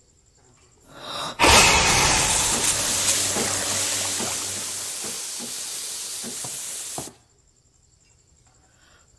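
Coffee machine hissing out steam for about five and a half seconds, slowly fading, then cutting off suddenly.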